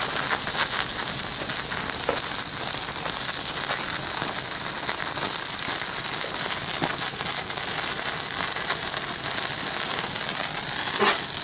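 Burning plastic Lego model in large open flames, crackling and hissing steadily with many small pops as the plastic melts.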